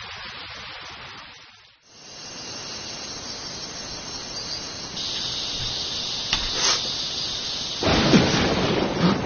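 Rain falling in a steady hiss. It drops away almost to nothing about two seconds in, then comes back. Near the end it grows louder, with a low rumble underneath.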